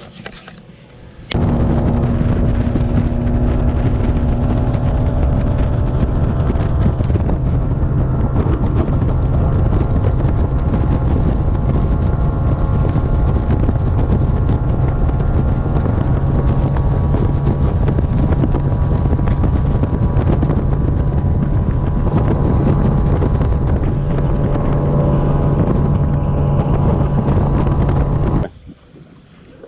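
Boat outboard motor running steadily at speed, with heavy wind buffeting the microphone; it starts abruptly about a second in and cuts off abruptly near the end.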